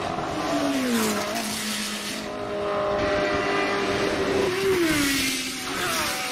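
1970s Formula One car engines at racing revs, car after car. The pitch drops steeply about a second in and again around five seconds as they come off the throttle into corners, then climbs again near the end as they accelerate away.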